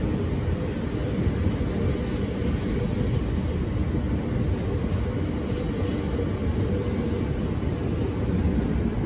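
SNCB AM08 Desiro electric multiple unit rolling past along the platform: a steady low rumble of wheels and running gear on the track.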